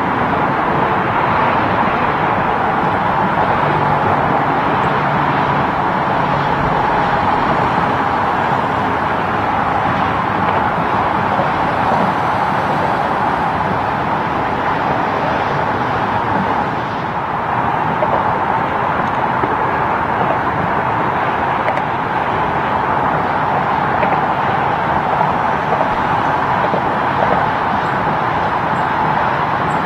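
Steady roar of highway traffic: tyres and engines of cars and tractor-trailers passing on the road.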